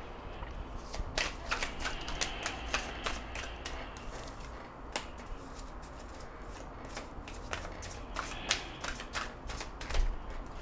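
A deck of tarot cards shuffled by hand. The cards make quick clicking snaps in two bouts, one starting about a second in and one about seven seconds in.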